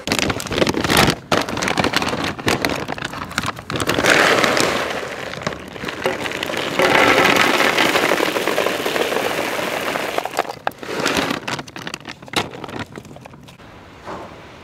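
Dry cat kibble poured from a paper bag onto a foam plate: a dense crackling, rattling patter, loudest about seven to ten seconds in, thinning to scattered clicks near the end.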